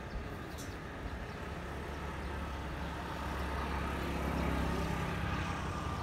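A motor engine running with a low steady drone that grows louder about a second and a half in and eases off near the end.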